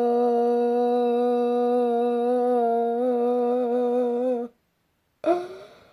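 A man's voice holding one very long 'bruh' at a steady pitch, wavering slightly near the end, then breaking off about four and a half seconds in. A short loud vocal sound follows about a second later.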